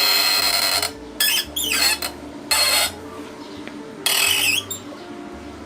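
Tool work on a motorcycle part being removed: several short, harsh bursts of metal working noise, about half a second each, two of them with squeals, until the part comes free.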